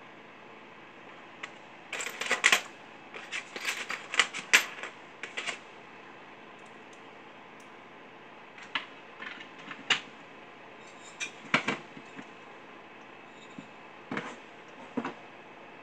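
Light clicks and metallic clatter of hand tools and small parts being worked on a chainsaw, coming in four short clusters, the busiest in the first few seconds.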